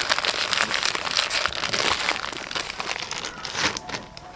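White seasoning granules poured from a crinkling plastic bag into a clay mortar: a dense, gritty hiss of grains that thins out about three seconds in.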